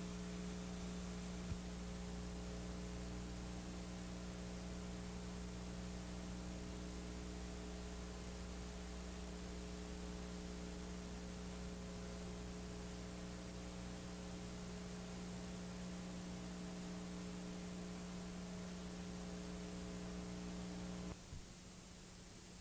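Steady electrical mains hum with hiss, the empty noise floor of a videotape playback with no program sound. About 21 seconds in the hum thins and drops slightly as its higher tones cut out, when the tape picture goes to a blue screen.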